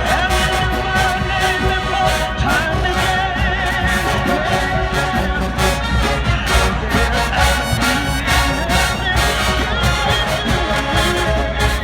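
Music with a singing voice over brass and a steady, heavy drum beat.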